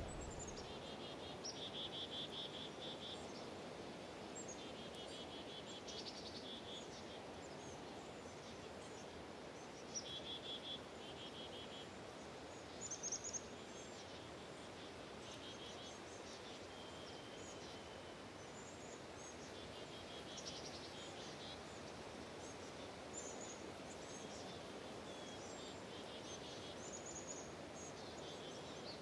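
Faint outdoor nature ambience: short, high chirping calls recur every few seconds over a steady hiss.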